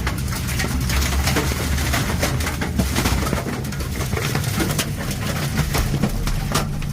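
A tornado passing directly overhead: a steady, heavy low rumble of wind with many sharp knocks and rattles of debris striking.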